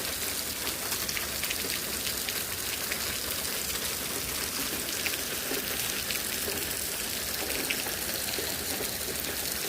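Heavy thunderstorm rain falling, a dense, steady patter of drops striking surfaces.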